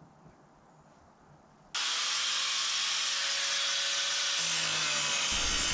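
Near silence, then from about two seconds in a handheld power grinder with a cut-off wheel cutting through the steel carriage bolts that hold the hay press hopper, a steady high grinding hiss.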